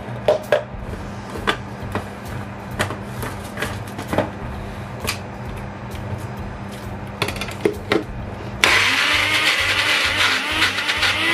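Plastic clicks and knocks as a personal blender's blade lid is screwed on and the cup set onto the base, then about eight and a half seconds in the blender motor starts and runs steadily, grinding mushrooms and vegetables for a sauce.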